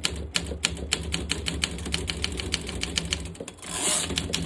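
Olympia SM7 manual typewriter's keys struck rapidly, the typebars clacking about five or six times a second, advancing and winding the newly threaded ribbon. A brief hiss comes near the end.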